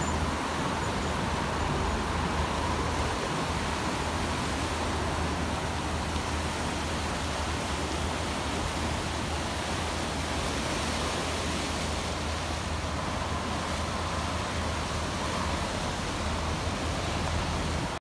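Sea waves washing and swirling over rocks at the foot of a seawall, a steady rushing with a low rumble beneath.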